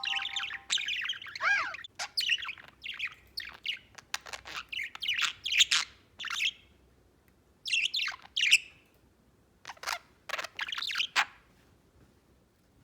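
Budgerigar chirping and warbling: fast, varied chatter that breaks off after about six seconds, returns in two short bouts, then stops near the end.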